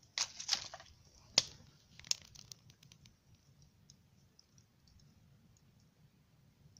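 Rustling and two sharp clicks in the first two seconds, then faint, scattered crackling from sticks burning in a small wood gasifier stove.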